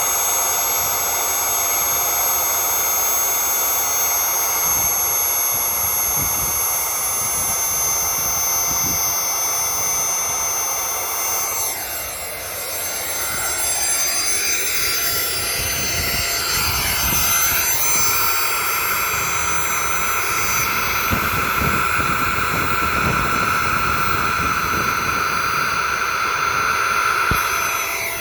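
Bare 8.5 amp brushed vacuum cleaner motor running at full speed with a steady high whine, its intake blocked so that it runs uncooled and is overheating. About twelve seconds in the whine dips in pitch and climbs back over a few seconds. Wind rumbles on the microphone.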